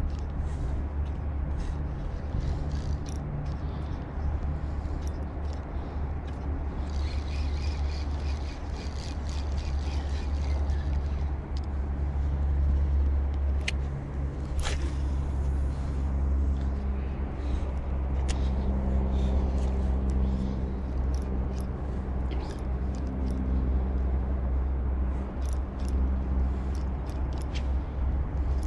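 A steady low engine rumble, like passing motor traffic, whose pitch drifts up and down, with scattered small clicks over it.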